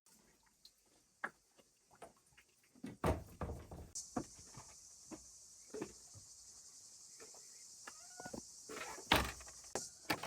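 Scattered knocks and thuds of handling objects, the two loudest about three and nine seconds in, with a steady high hiss that starts about four seconds in.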